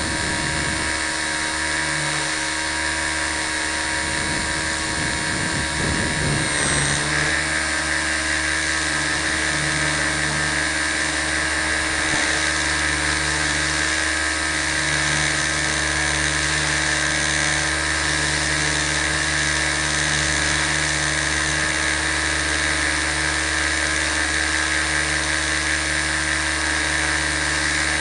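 T-250 RC helicopter running in a hover, picked up by a camera mounted on the helicopter: a steady high whine of motor and rotor gearing, its pitch wavering briefly about six to seven seconds in.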